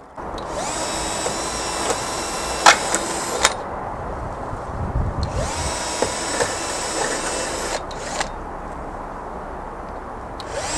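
Cordless drill-driver driving screws that fix a mounting bracket to a solar panel. It runs in three bursts of two to three seconds each, and the motor whine rises in pitch as each burst starts. There are a couple of sharp clicks during the first burst.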